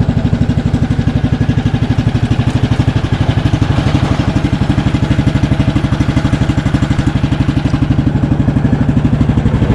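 Lawn mower engine running steadily with a fast, even putter.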